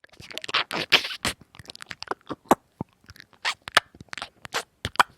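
Snow crunching and scraping in quick, irregular short bursts.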